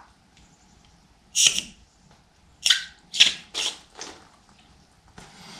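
Newly plumbed washing-machine tap opened, spitting out a run of five short hissing spurts as trapped air clears from the fresh pipe, then starting into a softer steady hiss of flow near the end.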